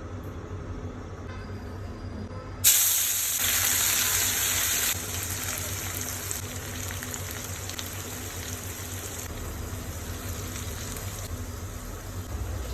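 Food dropped into hot oil in a pan about three seconds in, sizzling loudly for a couple of seconds, then frying on with a steady, quieter sizzle.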